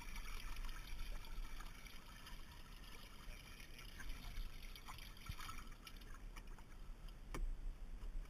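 Water splashing and trickling in a bass boat's livewell as a fish is put into it, with one sharp knock near the end.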